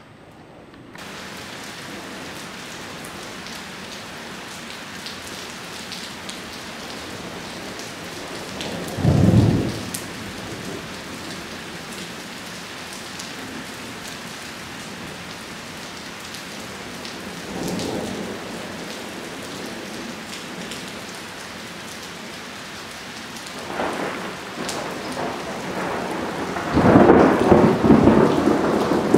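Steady rain from a severe thunderstorm, starting about a second in, with thunder: a short loud clap about a third of the way through, a fainter one later, and a longer, loudest rumble near the end.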